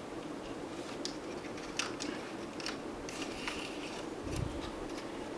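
Light clicks and taps of small plastic RC car parts being handled on a workbench, with a soft thump a little after four seconds, over a steady low hum.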